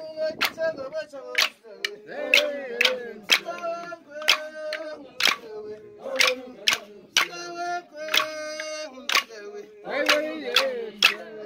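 Group of men and women singing together, with a sharp percussive beat about twice a second keeping time under the voices.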